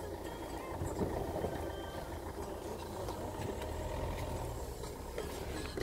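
Steady low rumble of a car on the move, its engine and tyre noise heard from inside the cabin.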